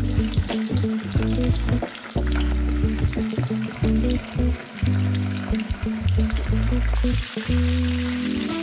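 Starch-coated chicken pieces deep-frying in hot oil in a frying pan, bubbling and crackling busily. Background music with held low notes plays underneath.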